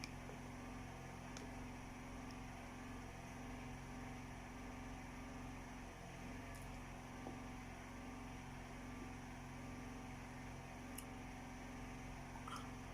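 Steady low electrical hum under quiet room tone, with a few faint ticks.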